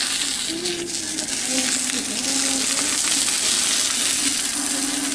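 Food frying on a hot griddle, with a steady sizzling hiss and a few faint metallic clinks.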